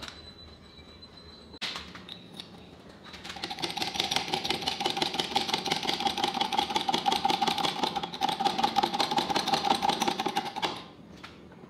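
5-ton hydraulic bottle jack being pumped fast by its handle, raising the ram: a rapid clattering rattle with a steady whining tone. It starts about three seconds in and stops abruptly near the end, after a couple of light knocks at first.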